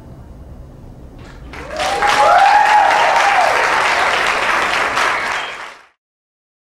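Audience applauding with some cheering. The applause swells in about two seconds in and cuts off abruptly near the end.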